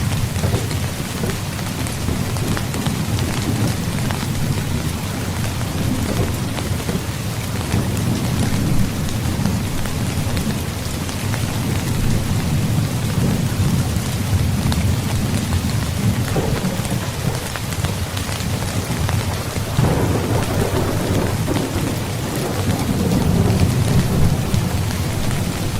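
Steady heavy rain falling, with low thunder rumbling under it, swelling and easing several times, most strongly about 20 seconds in and again near the end.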